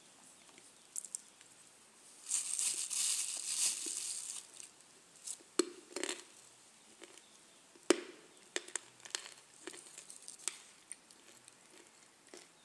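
Thin plastic bag crinkling as hands rummage through pieces of dried kaolin clay, followed by scattered sharp clicks and snaps as the chalky lumps are handled. The loudest snap comes about two-thirds of the way in.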